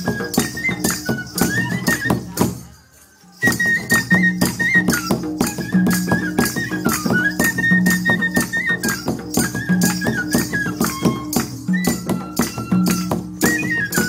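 Traditional Bengali folk dance music from the Sunderbans: a high, stepping melody over a low steady drone, with fast rattling percussion. The music briefly drops out about three seconds in, then resumes.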